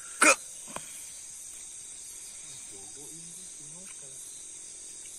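Steady night chorus of crickets, an even high-pitched trill. One short, loud sudden noise comes near the start, followed by a fainter click.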